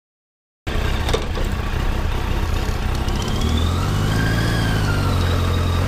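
1991 Kawasaki Voyager's four-cylinder engine, starting abruptly just under a second in and running at low speed; its pitch rises and then falls back as the motorcycle rolls across the lot.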